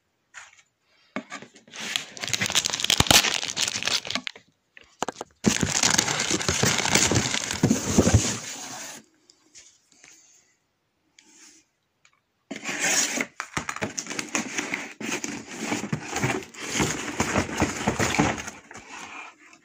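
A parcel being torn open by hand: a black plastic bag wrapping crinkling and rustling, with tearing of the packaging. It comes in three stretches of a few seconds each, with short pauses between them.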